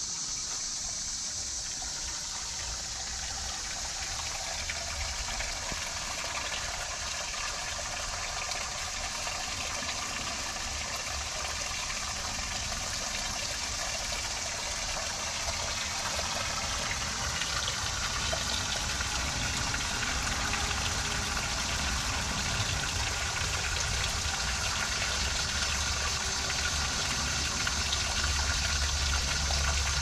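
Water pouring in a steady stream from a tipped bucket and splashing into the water of a stone well below. It grows gradually louder.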